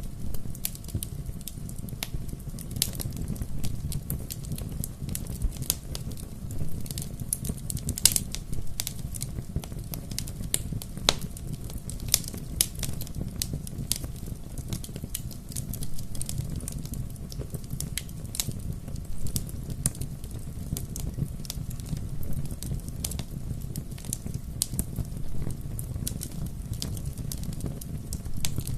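Wood fire burning with a steady low rumble and frequent sharp, irregular crackles and pops, a few louder snaps among them.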